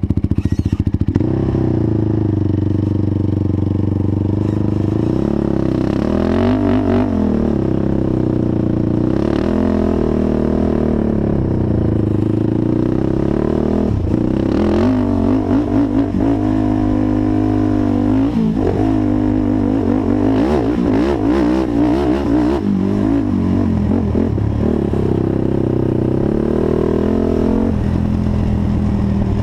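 Honda TRX450 quad's single-cylinder four-stroke engine being ridden hard, revving up and falling back again and again through the gears and corners, with a few short clattering knocks along the way.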